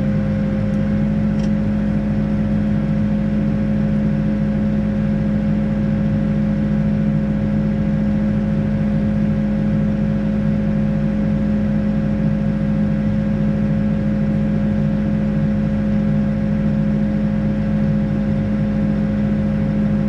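Backhoe's diesel engine running at a steady speed, heard from inside the cab, with the boom held still. An even hum carries two steady tones that never change in pitch.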